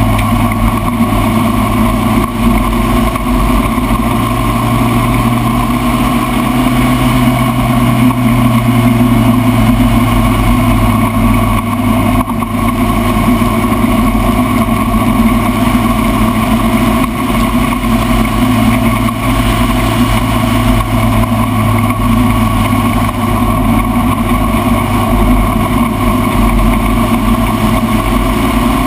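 Spec Racer Ford race car engine running hard and steady at speed, its pitch shifting only slightly, with a constant rush of wind and road noise.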